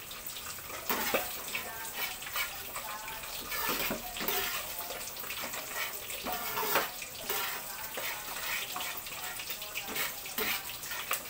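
Coconut milk simmering and bubbling in a pan on a gas burner, stirred and scraped with a metal spatula, with short scraping clicks scattered throughout. The sauce is being cooked down until its oil begins to separate.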